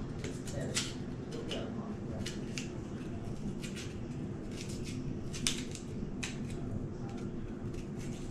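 A small knife peeling and cutting a raw cassava (tapioca) root held in the hand: short, crisp cutting scrapes at irregular intervals, about one or two a second, with the sharpest one about five and a half seconds in.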